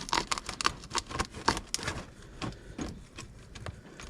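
Irregular clicks and light scrapes of a hand tool working at a motorcycle engine's front oil drain plug, which is sealed with silicone.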